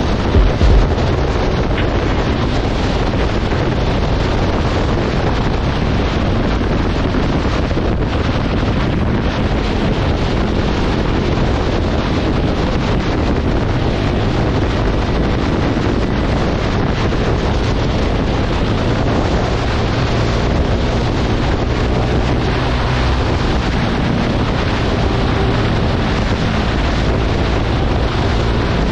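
Heavy, steady wind buffeting on an action-camera microphone on a motorcycle at highway speed, about 100 km/h, with the KTM Duke 390's single-cylinder engine running beneath it. A couple of harder low wind thumps come about half a second in.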